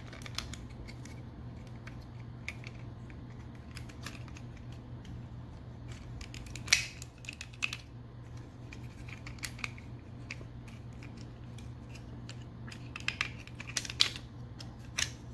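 Plastic Transformers action figure being worked through its transformation by hand: scattered clicks and snaps of its joints and parts, the loudest about seven seconds in and twice near the end, over a low steady hum.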